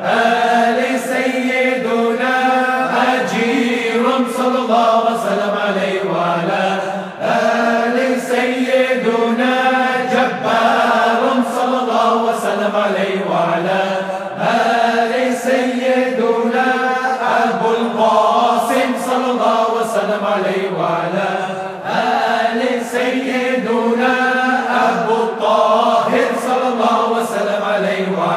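A group of voices chanting an Islamic zikr litany, continuous and melodic over a steady low held tone.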